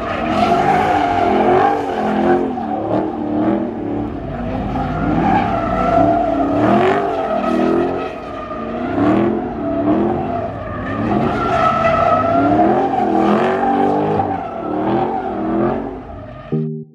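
Car doing a burnout: tires squealing in a steady wavering tone while the engine revs up and down about once a second.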